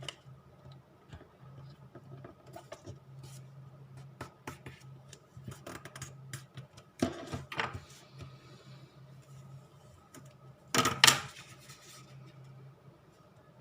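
Printed paper being folded and creased by hand: scattered small taps and rustles, with two louder paper rustles about seven and eleven seconds in, over a steady low hum.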